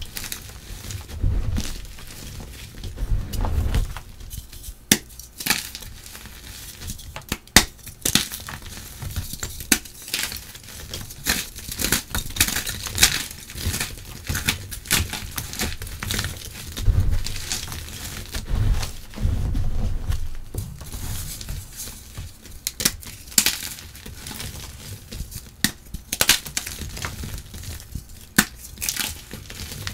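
Blocks of chalk crushed and crumbled by hand over a bowl of broken chalk and charcoal powder: irregular crunching with many sharp snaps as pieces break.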